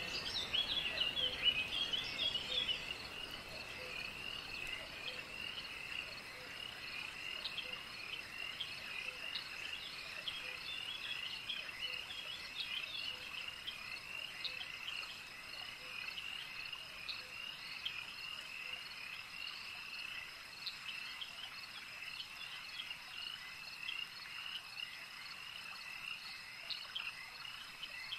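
A dense night chorus of frogs and chirping insects: many short calls overlapping into a steady high trill, a little louder for the first few seconds.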